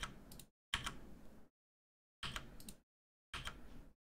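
Faint computer keyboard and mouse clicks in four short groups, each cut off sharply to silence.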